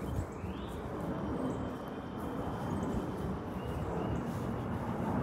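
Steady outdoor background noise, a low rumble with hiss, and a few faint high chirps.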